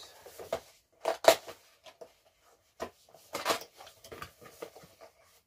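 Cardboard boxes being handled: an inner box is slid and lifted out of a larger one, with scuffs, light taps and a sharp knock about a second in, then a longer rustling scrape a little past halfway.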